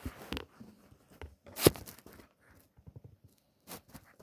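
Scattered knocks and rustles from a phone camera being handled, with a sharp knock about one and a half seconds in and another near the end.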